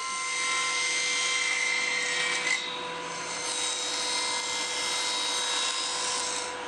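Table saw running with a steady whine while thin plywood is fed through the blade with a push stick. The sound of the cut changes about two and a half seconds in.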